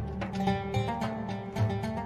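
Background music: a plucked-string instrumental, with notes picked over a pulsing bass line.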